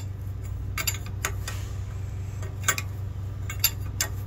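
Steel combination wrench clinking on the caging-bolt nut of a truck's spring brake chamber as the nut is turned down to compress the spring. About five sharp metallic clicks come at uneven gaps over a steady low hum.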